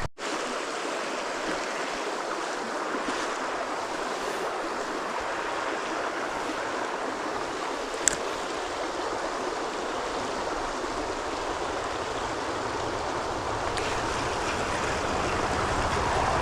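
Canyon trout stream rushing steadily, growing a little louder near the end, with a single brief click about eight seconds in.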